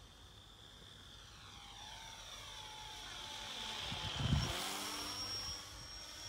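Radio-controlled Spitfire model plane making a low pass overhead. The drone of its motor and propeller grows louder, peaks about four seconds in as it passes directly over, and drops slightly in pitch as it goes away. A brief low rumble comes at the peak.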